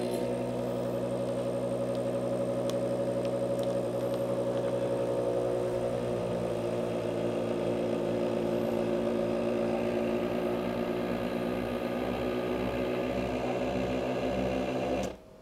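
Vac-Star easyPRO vacuum sealer's pump motor running steadily, drawing the air out of a bag of steak. It starts with a click and cuts off suddenly near the end.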